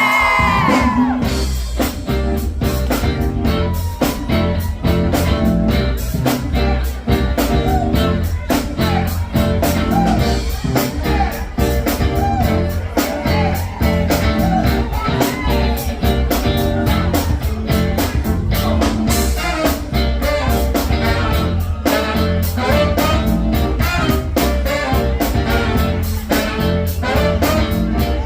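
Soul-jazz music with a singer, brass, guitar and bass over a steady drum beat.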